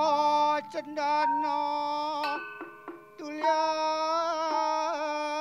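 A woman's voice singing a slow chanted line of narration verse in old Javanese style, holding long notes with a wavering pitch and dipping briefly a little after two seconds in.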